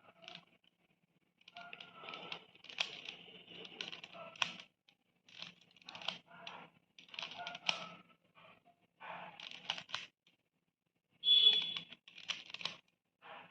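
Plastic clicking and clacking of a triangle Rubik's puzzle being twisted by hand, in bursts of quick clicks with short pauses between turns.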